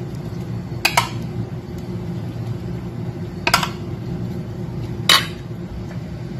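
Metal spoon clinking against a stainless steel pot and glass baking dish as béchamel sauce is scooped out and spread: two quick clinks about a second in, then single ones at about three and a half and five seconds, over a steady low hum.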